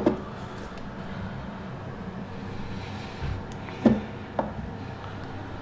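A few hollow knocks and clunks of toilet cistern syphon parts being handled, the loudest about four seconds in and a smaller one just after, over a low steady hum.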